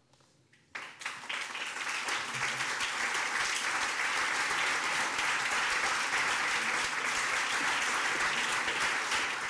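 An audience applauding: many hands clapping start under a second in, swell over the next two seconds and then hold steady.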